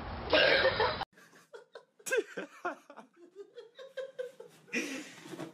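About a second of loud rough noise that cuts off abruptly, then a person laughing softly in short bursts that rise and fall in pitch.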